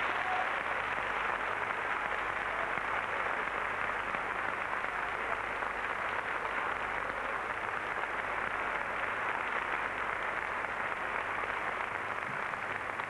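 Audience applauding steadily, a dense even clapping right after the final orchestral chord of the aria.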